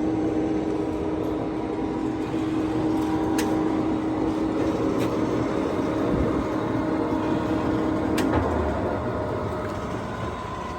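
Poreba TPK90 engine lathe running under power: a steady gear whine and hum with a few sharp clicks. About eight seconds in there is a clunk as the spindle brake is applied, the main whine stops and a fainter steady hum carries on.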